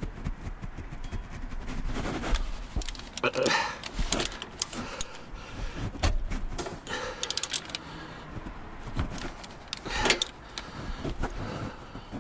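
Ratchet and oil filter cap wrench clicking and clinking against metal as an engine oil filter is worked loose from underneath, with irregular knocks and handling noise and a quick run of ratchet clicks about seven seconds in.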